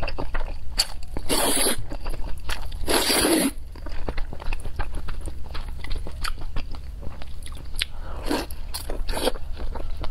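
Person slurping noodles and chewing: two long slurps in the first few seconds, then wet chewing and mouth smacks, with two shorter slurps near the end.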